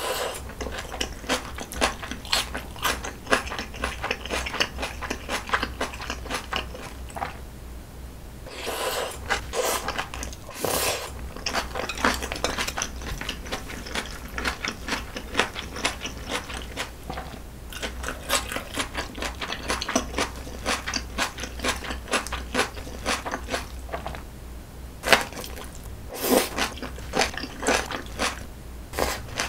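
Close-miked chewing of spicy jjajangmyeon noodles with squid and shrimp, and green onion kimchi: a steady stream of quick wet clicks and smacks, with a few louder bites.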